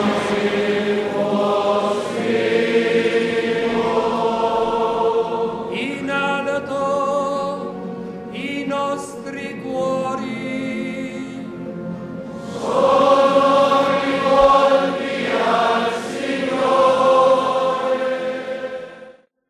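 Choir singing slow sacred music in long held phrases, swelling to its loudest a little past the middle and fading out just before the end.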